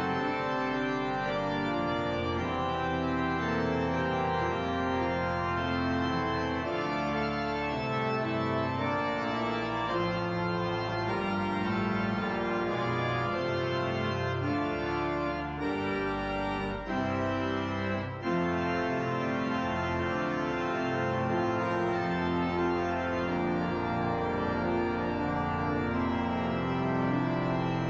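Church organ playing a piece of sustained, full chords over bass notes, the harmony changing every second or so, with two brief breaks between phrases about sixteen and eighteen seconds in.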